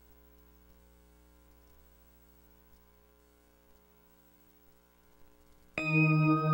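Faint steady electrical hum. Near the end, a loud ringing, bell-like musical tone with several held pitches comes in suddenly: the start of an ident jingle.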